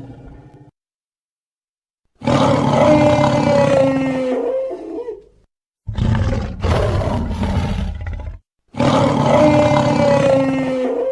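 Dinosaur roar sound effects: three loud roars in a row with short gaps, each lasting about three seconds. The first and last are the same roar, and the middle one is rougher, broken into several grunting pulses.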